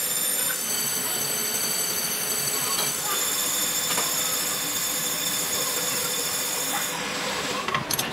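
A metal lathe's tool bit facing a spinning cast-iron brake disc, giving a high-pitched cutting squeal that shifts in pitch a couple of times over the noise of the running lathe. The squeal stops about seven seconds in, followed by a few clicks.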